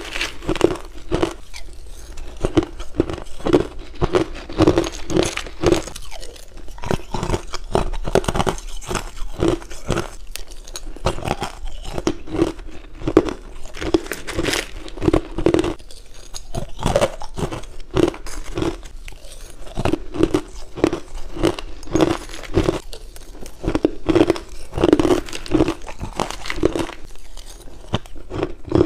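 Close-up crunching and chewing of crushed ice: sharp, crackling bites on hard, refrozen ice chunks, chewed in a steady rhythm of about two chews a second.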